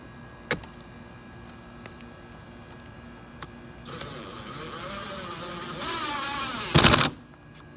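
Cordless drill driving a screw: a single click, then the motor whines for about three seconds, its pitch dropping as the screw bites, ending in a short loud clatter.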